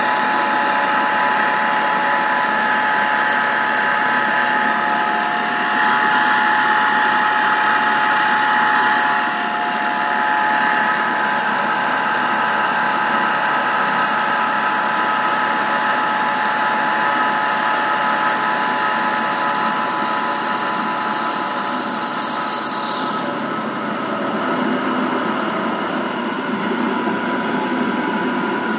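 Vertical milling machine cutting a lengthwise slot into a shaft with an end mill: steady motor and spindle running with a whine and cutting noise. A high hiss drops out about three-quarters of the way through.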